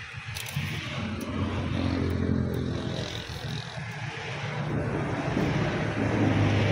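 A motor vehicle's engine running with a steady low hum that grows louder toward the end, with a few faint clicks in the first couple of seconds.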